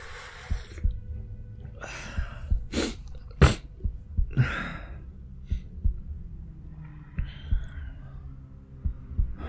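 A man ill with a fever and dry cough breathing out heavily, then a short run of hoarse coughs between about two and five seconds in, the sharpest near the middle, and a softer breathy burst later. Faint low thumps run underneath.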